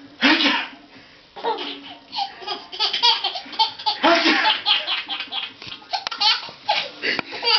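Baby laughing hard in quick repeated bursts of belly laughter, with a loud burst just after the start.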